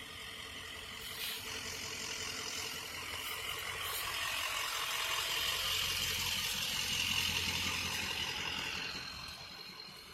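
A motor vehicle drives past: engine and tyre noise builds up to a peak about six to seven seconds in, then fades away.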